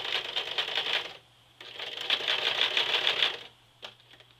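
Sewing machine stitching across a denim jeans waistband, a rapid, even needle clatter in two bursts with a short pause about a second in. The machine stops about three and a half seconds in, followed by a faint click.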